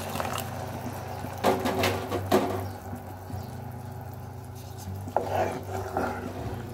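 Thin coconut milk poured into a hot pan of jaggery-coated jackfruit, hissing for the first couple of seconds, with a few sharp knocks of a spoon against the pot as it is stirred in. A steady low hum runs underneath.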